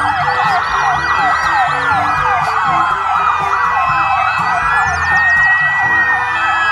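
Several police vehicle sirens sounding at once: fast repeated yelping sweeps overlap a slower wail that rises and falls twice.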